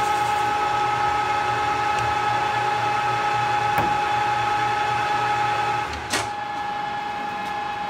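Metal lathe running, turning a metal workpiece for a cam bearing installation guide under coolant, with a steady whine of several constant tones over a noisy hiss. About six seconds in there is a sharp click, and the sound drops to a quieter steady hum.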